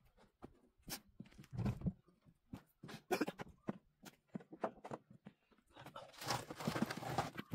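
Wooden pallets knocking and clattering under footsteps and handling, a string of short wooden knocks. About six seconds in comes a longer scraping rattle of wood on wood as a pallet is lifted and dragged.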